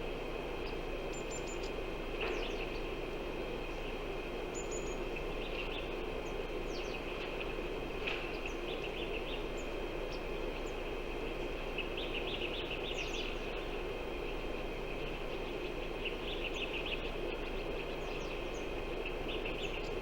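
Outdoor ambience: a steady rushing noise with a constant high insect-like drone, and small birds chirping in short clusters several times.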